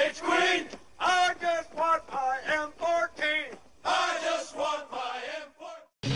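Male voices singing in a chant-like style, with no steady beat. They cut off abruptly about six seconds in, and a rock song starts right at the end.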